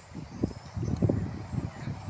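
Wind buffeting the microphone: uneven gusts of low rumble that rise and fall, strongest about half a second and one second in.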